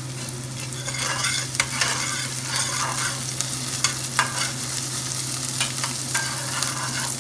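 Sliced onion and ginger sizzling in hot oil in a stainless steel frying pan, browning. From about a second in, a metal spatula stirs them, scraping and clicking against the pan.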